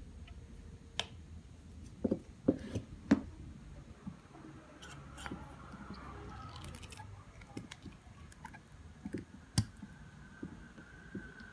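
A series of sharp clicks and knocks, clustered about two to three seconds in, with one more loud click near the end. A faint steady whine comes in about halfway through.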